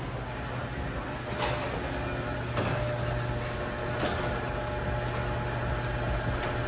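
A steady low mechanical hum with a few short clicks and falling whooshes.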